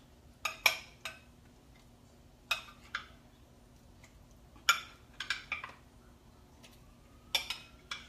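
Metal cookware and utensils clinking and knocking: about ten sharp, ringing clanks in small clusters as pieces of boiled pork hock are put into a pot.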